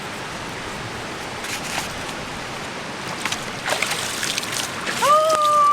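Mekong river water rushing over rocks, a steady hiss with a few small splashes. Near the end a long, level, high-pitched tone starts.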